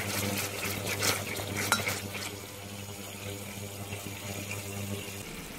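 A spoon stirring and scraping through sugar syrup bubbling in a stainless steel pot on an induction hob, the syrup starting to caramelise. A steady low hum from the hob runs underneath and cuts out about five seconds in.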